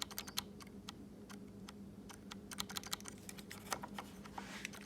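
Repeated, irregular clicking of the starter button on a 2021 Indian Challenger's handlebar switch, with no crank from the engine: a no-crank, no-start fault. A faint steady hum runs beneath the clicks.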